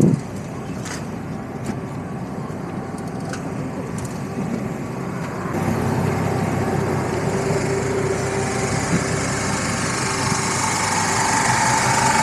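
City street traffic: vehicle engines running steadily, growing louder about halfway through as a heavier engine hum comes in close and holds.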